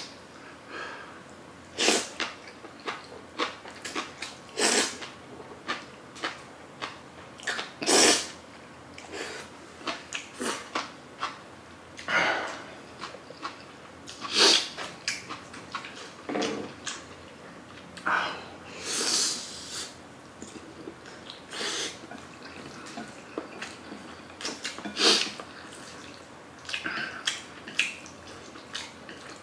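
Close-miked eating sounds: a person chewing and slurping jajang ramen noodles, with irregular short smacks and a few longer slurps.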